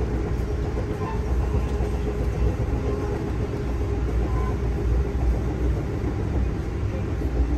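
Amtrak Downeaster passenger car rolling along the rails, heard from inside the coach: a steady, even rumble of wheels and running gear with no distinct beat.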